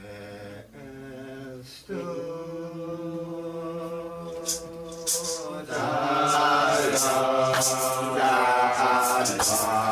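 A slow hymn chanted by voices in long held notes, growing louder and fuller about six seconds in.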